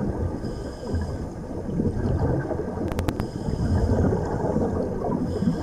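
Muffled underwater noise picked up through a dive camera: a low, irregular rumble with gurgling, broken by three quick sharp clicks about three seconds in.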